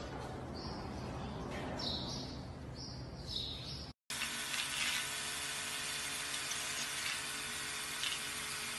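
Low rumbling noise with a few short high chirps. After a brief cut about four seconds in, an electric toothbrush runs with a steady buzzing hiss as it is held against a parrot's head.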